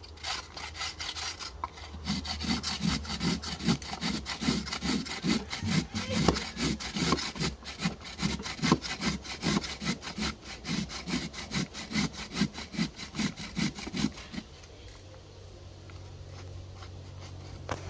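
A carrot being grated on a stainless steel box grater: a steady run of rasping strokes, about two a second, that stops a few seconds before the end.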